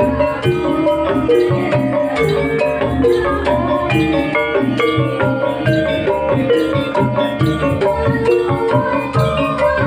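Javanese jaranan dance music on gamelan: a dense, even run of mallet-struck metallophone notes over steady percussion.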